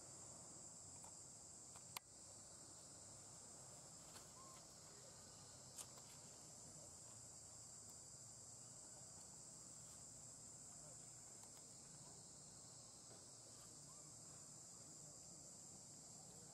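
Faint, steady, high-pitched insect chorus, with two sharp clicks about two and six seconds in.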